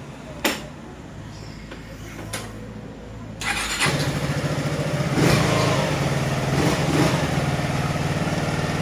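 Yamaha X-Max 250 scooter's single-cylinder engine. A low steady hum with two sharp clicks comes first, then about three and a half seconds in the engine gets much louder and runs steadily.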